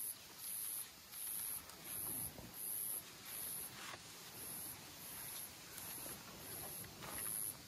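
An insect calling in very high-pitched pulses that repeat evenly, a little under two a second.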